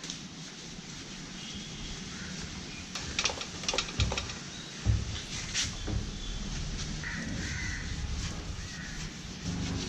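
Crows cawing over a steady outdoor background, with a few sharp clicks and two low thumps near the middle.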